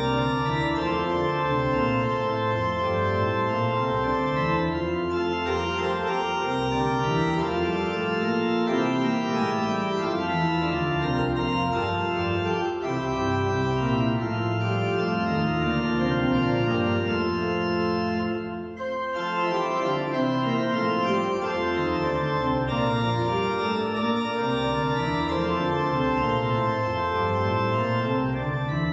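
Church organ playing sustained chords over a moving bass line, with a brief break about two-thirds of the way through.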